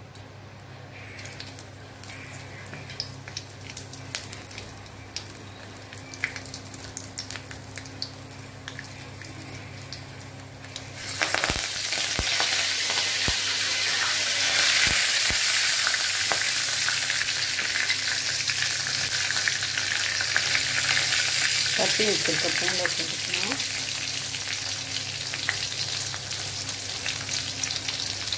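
Oil heating in a wok with faint scattered crackles, then about eleven seconds in, green chillies, dried red chillies and garlic hit the hot oil and start sizzling loudly. They keep frying steadily: the tempering for a sundal.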